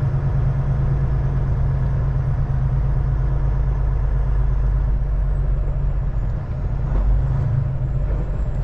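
Steady low drone of a semi truck's engine and road noise while it cruises down the highway, heard from inside the cab.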